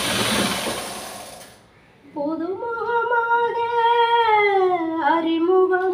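A hand-operated sewing machine runs for about a second and a half, then stops. After a short pause, a woman's voice sings one long held note that bends slowly in pitch, with a brief break near the end.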